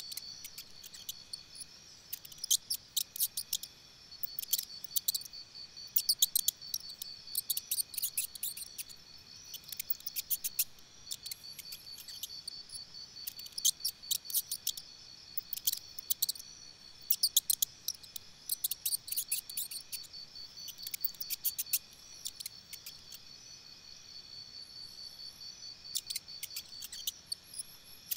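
An insect chirping in the grass, cricket-like: repeated bursts of rapid, sharp clicks every second or two over a faint steady high-pitched tone.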